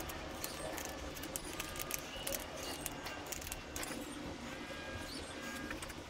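Small metal parts and hand tools being handled: a steady run of light clicks, taps and short clinking pings, ending in one sharp, louder click.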